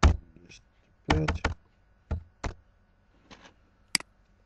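Computer keyboard keystrokes and mouse clicks: a few separate sharp taps as a number is typed into a field, then a crisp mouse click near the end.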